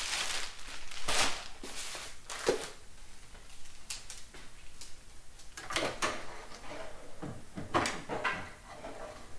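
Handling a new Moen kitchen faucet: plastic wrapping rustles at first, then a run of knocks and clacks as the faucet body and its braided supply hoses are moved about and lowered into the stainless sink's mounting hole. The loudest is a sharp click about four seconds in.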